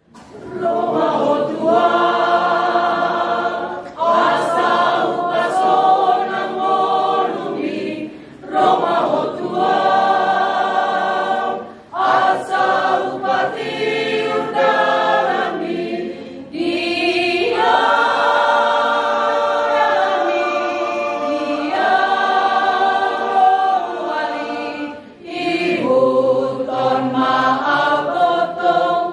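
Mixed choir of men and women singing a Batak-language hymn in harmony, in sustained phrases with short breaks for breath between them.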